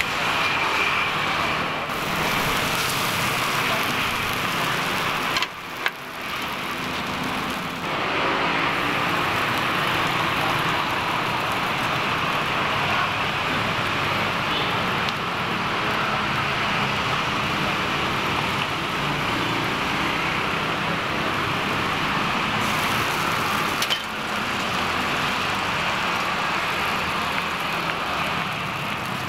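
Serabi batter sizzling in small black iron pans over the stall's burners, a steady hiss and crackle with road traffic behind it. The sound breaks briefly about six seconds in and again near the end.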